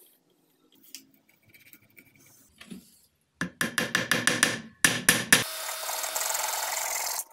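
A wooden dowel plug knocked into a glued hole in a board with a hammer: a quick run of about eight sharp taps, a short pause, then three more. A saw then cuts the plug off flush with the board in a steady rasping run of about two seconds that stops suddenly.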